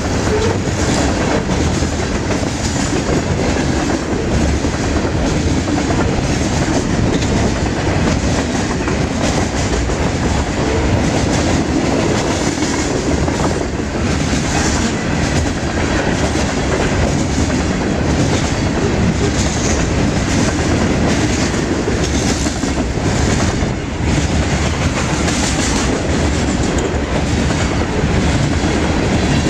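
Coal hopper cars rolling past: a steady, loud rumble of steel wheels on the rails with repeated clicking over the rail joints.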